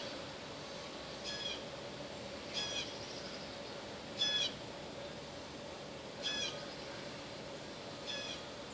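A bird calling over and over: five short calls with a few stacked pitches, spaced about one and a half to two seconds apart, over a faint steady hum.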